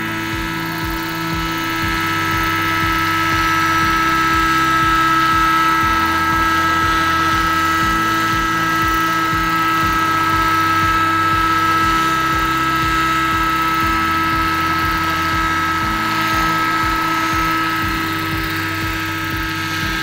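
Electric 1/5-scale RC Huey helicopter hovering: a steady whine from its electric motor and drivetrain over the rapid low beat of the main rotor blades.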